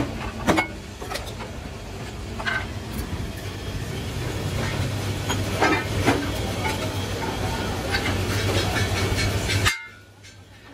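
Metalworking machinery in a wheel rim workshop running with a steady low hum and a dense noise, broken by a few sharp metallic clanks as steel rim plates are worked. The sound cuts off abruptly shortly before the end.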